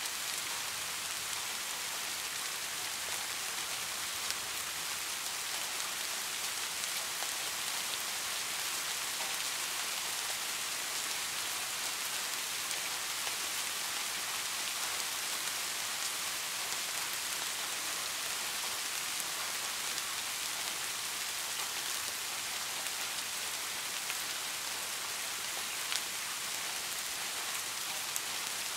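Heavy rain falling steadily: a dense, even hiss with scattered sharp ticks.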